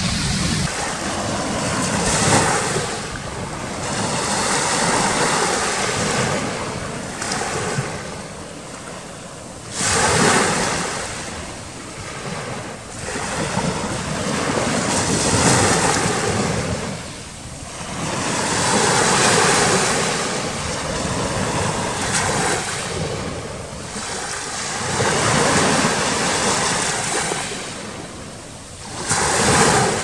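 Black Sea waves breaking and washing up the shore, the surf surging and ebbing about every four to five seconds.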